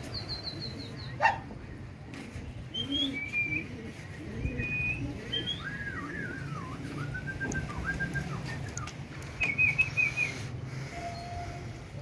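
Small birds chirping in short high calls, with a run of longer rising-and-falling calls in the middle and a quick string of chirps near the end, over a steady low hum. A sharp click sounds just over a second in.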